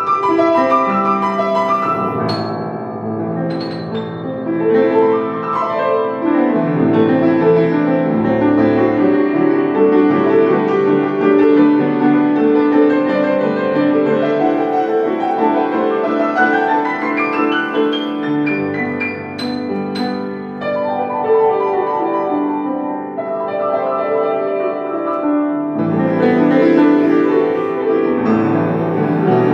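Solo piano playing, with fast runs sweeping up and down the keyboard, including a long rising run about halfway through.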